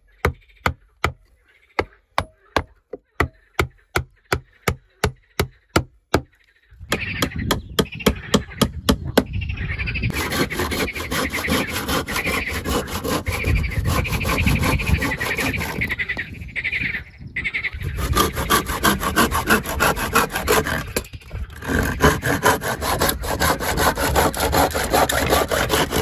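A hammer knocking on a wooden plank, about three even blows a second for the first six seconds or so. Then a hand saw cutting through a board in quick, steady strokes, pausing briefly twice.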